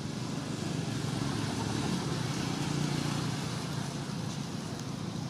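Steady low outdoor rumble that swells slightly about halfway through and then eases, with no clear engine note.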